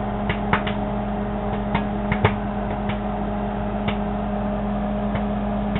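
Microwave oven running with a steady hum while Orville Redenbacher butter microwave popcorn gives sparse, scattered pops. The popping has slowed almost to none, the sign that the popcorn is done and should come out before it burns.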